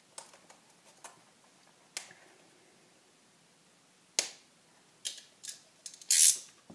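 Scattered light clicks and knocks of clear plastic deli containers and a small tool being handled on a hard desk. A louder rustling scrape comes near the end.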